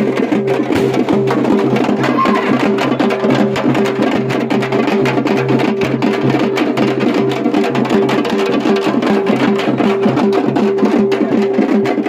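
Loud festival procession music: fast, dense drum strokes over a low droning tone that pulses on and off in a steady beat.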